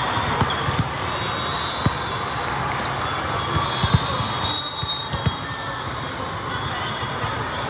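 Volleyballs being hit and bouncing on a court: scattered sharp smacks and thuds over the steady din of a busy sports hall, the loudest about four seconds in.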